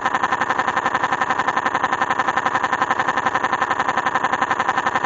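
Car engine running steadily with an even, rapid pulse.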